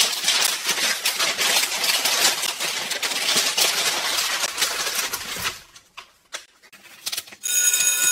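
Sheets of paper being flipped and flapped loudly, a dense crackling rustle for about five and a half seconds, then a few soft rustles. Near the end a set of steady tones begins.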